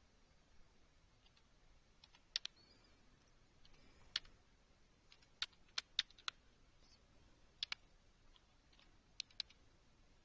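Faint computer-keyboard typing: single keystrokes and quick pairs of keys struck slowly and unevenly, with pauses of a second or more between them.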